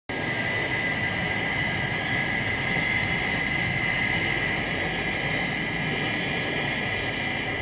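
A classic sci-fi sound effect: a steady mechanical drone with a dense rumbling hum and a sustained high whine over it, like a spaceship engine. It starts and cuts off abruptly.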